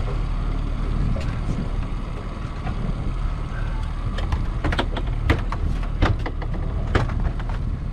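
Small fishing boat's motor running steadily at trolling speed, a low continuous rumble. Several sharp knocks and clicks come in the second half.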